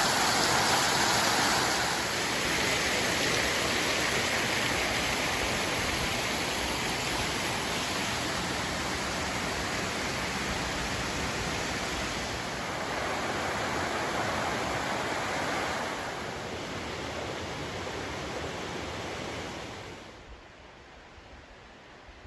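Waterfall and stream rushing steadily, its level shifting a little in steps, then dropping suddenly to a faint hiss near the end.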